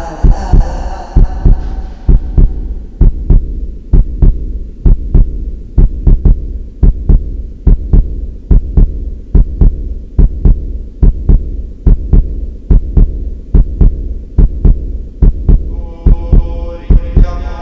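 Heartbeat sound effect: a steady 'lub-dub' of paired low thumps, a little under one beat a second, over a low hum. A sustained tone fades out in the first two seconds and a fuller one swells in near the end.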